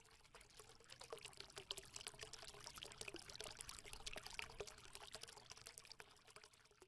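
Faint trickling, pouring water with many small crackling drips, fading in about a second in and dying away near the end.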